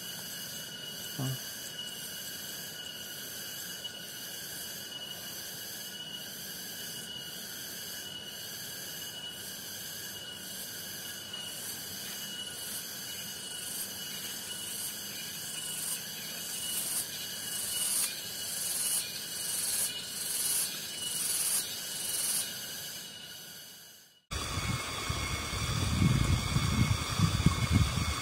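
Rice-paddy ambience of insects chirring: a steady shrill drone that swells about once a second through the second half. After a sudden cut near the end, wind buffets the microphone.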